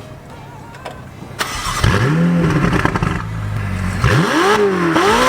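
Ferrari 488's twin-turbo V8, fitted with upgraded turbos, downpipes and a race exhaust, idling and then revved hard twice. The exhaust note rises and falls with each throttle blip, and the second rev peaks twice.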